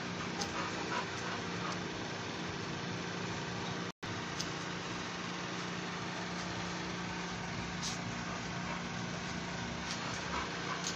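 Steady mechanical hum of a running motor, with a brief break in the sound about four seconds in.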